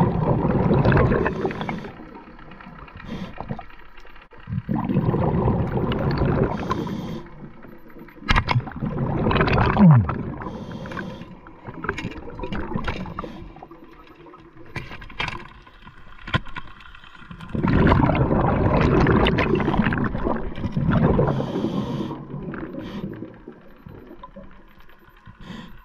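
Scuba diver breathing through a regulator underwater, exhaled bubbles rushing out in loud bursts a few seconds apart, with quieter stretches between. A brief low falling tone sounds about ten seconds in.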